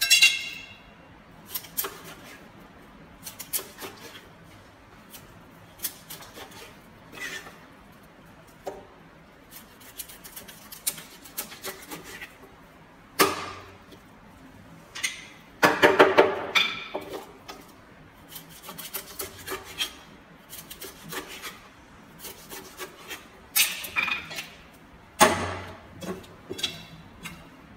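A large knife cutting raw fish into chunks on a plastic cutting board: irregular knocks of the blade on the board, mixed with slicing and scraping sounds. A few chops are louder, and one has a brief metallic ring.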